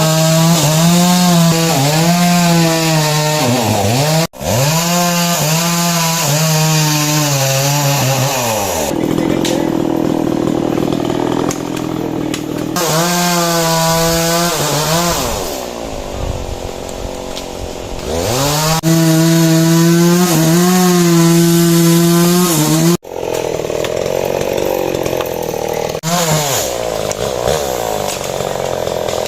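Small two-stroke engine tool running hard, its pitch repeatedly sagging under load and picking back up. The sound breaks off abruptly twice.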